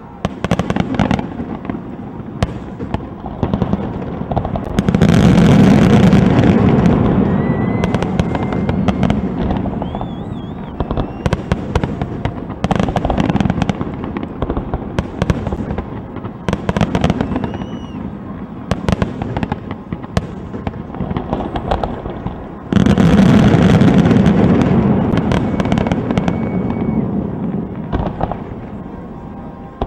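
Aerial firework shells bursting in a steady run of sharp bangs and crackle. It swells into two louder stretches of continuous booming, about five seconds in and again near twenty-three seconds in.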